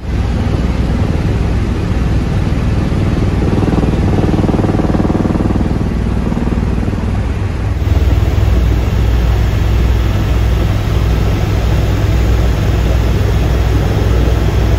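Helicopter cabin noise in flight: the turbine engine and rotor running steadily, a deep rumble under an even hiss.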